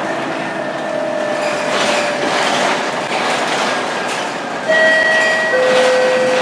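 Scania K230UB bus's engine and ZF 6HP502C automatic gearbox heard from inside the cabin, whining as the bus pulls. A little past halfway it suddenly gets louder with a sharper whine, and about a second later the whine steps down in pitch at a gear change.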